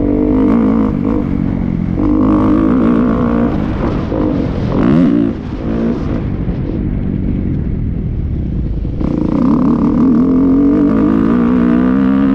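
Motocross dirt bike engine revving up and down as it is ridden around a track. It eases off about halfway through, then opens up again about three seconds later.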